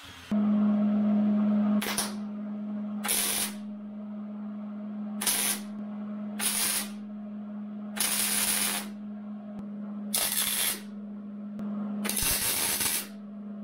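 MIG welder laying a series of short tack welds on mild steel, about seven brief bursts a second or two apart, over a steady low hum.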